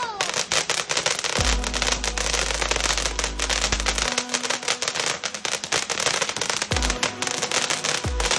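Snow Cone ground fountain firework spraying sparks with a dense, continuous crackle. Music with deep bass notes and falling bass drops plays underneath.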